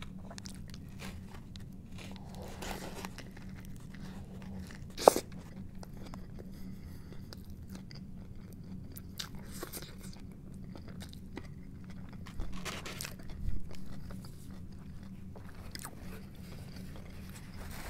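Close-up biting and chewing of a toasted chicken club sandwich, with many small crunching clicks. One sharp click about five seconds in is the loudest sound, and there is a louder stretch of chewing about two-thirds of the way through.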